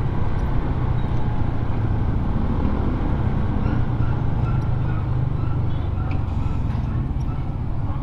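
Steady riding noise of a Honda Click 125i scooter on the move: a low rumble of wind on the camera's microphone over the scooter's single-cylinder engine.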